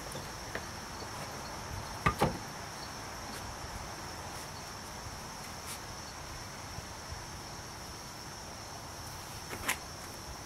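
Steady high chirring of insects, with two sharp wooden knocks about two seconds in and another near the end as wooden blocks are set against a plywood board on a car's cargo floor.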